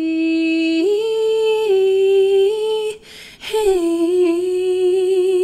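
A woman singing without words and without accompaniment: held notes that step up and down, a breath about three seconds in, then a long held note with vibrato.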